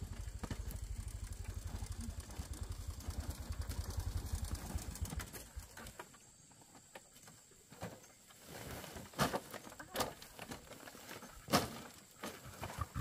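A small motorbike engine putters in a rapid, even low beat as it rides up, then cuts out about five seconds in. After a lull come rustles and sharp knocks as the sacks of corn are handled, the loudest knock near the end.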